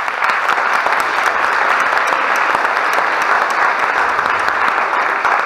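Theatre audience applauding loudly and steadily, a dense patter of many hands clapping.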